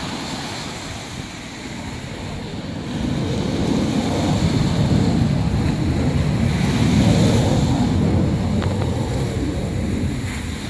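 Small waves breaking and washing up a sandy beach, with wind buffeting the microphone; the sound gets louder and heavier in the low range from about three seconds in.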